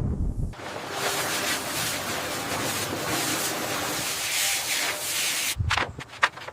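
A steady hissing noise that stops about five and a half seconds in, followed by a quick run of short scraping strokes.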